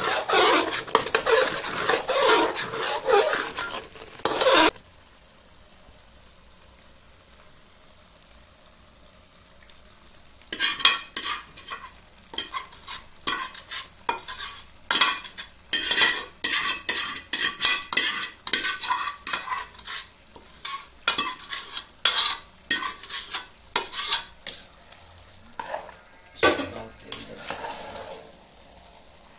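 Metal spoon stirring and scraping inside an aluminium cooking pot, a dense run of scraping that cuts off suddenly about five seconds in. After a few quiet seconds, a metal spatula clacks and scrapes repeatedly against aluminium pots as thickened milk is scraped out of one pot into a pot of cooking carrots.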